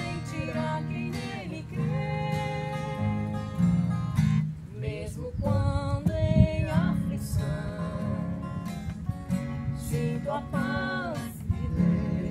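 Acoustic guitar strumming chords to accompany a woman singing a slow Congregação Cristã no Brasil hymn, her voice holding long notes with a slight waver.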